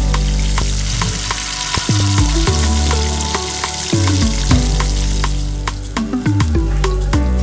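Battered chicken deep-frying in hot oil: a steady sizzle that drops away about two-thirds of the way through, heard under background music with a bass line.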